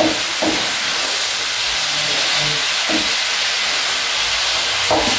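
Beef sizzling in hot oil in a frying pan as it browns, with a few scrapes of a wooden spatula stirring it.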